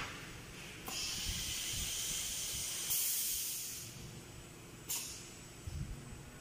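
Automatic side-shooting sand core shooter machine venting compressed air. A hiss starts about a second in and lasts about three seconds, louder for its last second, followed by a short sharp puff of air near the end.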